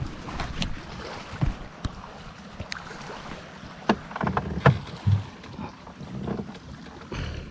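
Water lapping against the hull of a small aluminium Triton 1446 crappie boat, with a scatter of short knocks and a low thump about five seconds in, and light wind on the microphone.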